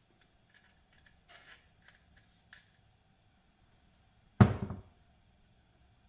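Light clicks and ticks of small parts being handled, then one sharp thunk about four seconds in that dies away within half a second.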